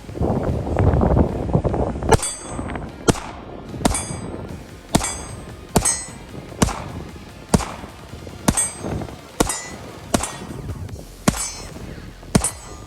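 Steel shooting targets struck by bullets in a steady string: about a dozen sharp metallic clangs, roughly one a second, each ringing briefly. The string starts about two seconds in, after a low rumble.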